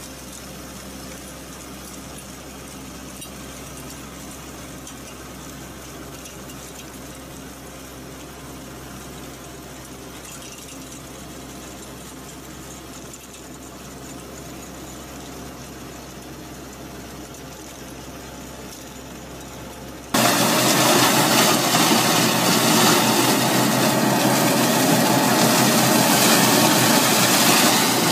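The small engine of a red row weeder running steadily at a low level while its finger rotor churns the soil between crop rows. About twenty seconds in it gives way suddenly to the much louder engine of a compact tractor on rubber tracks and its rear flail mower cutting tall grass.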